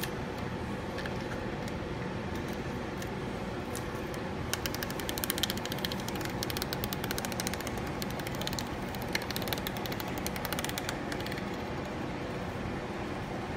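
Blue masking tape being peeled off a motor rotor's freshly painted windings: a dense crackling as the tape pulls free. It starts about a third of the way in and stops a few seconds before the end, over a steady background hum.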